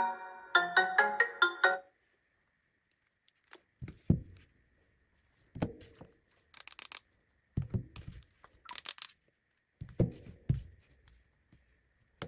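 A smartphone ringtone in marimba-like mallet tones plays a quick melody that stops about two seconds in. After a short gap comes a string of separate low knocks and short hissing bursts, one every second or two.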